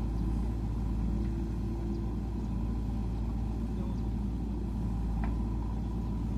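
JCB 3DX backhoe loader's diesel engine running steadily under hydraulic load while the backhoe arm digs a bucket of soil and lifts it: a low, even rumble.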